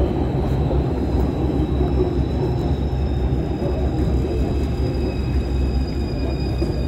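Steady low rumble of an underground rail station concourse, with a few faint high-pitched whines held throughout, heard from an escalator going down.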